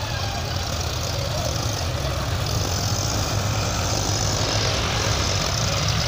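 Farm tractors' diesel engines running together in a steady low drone.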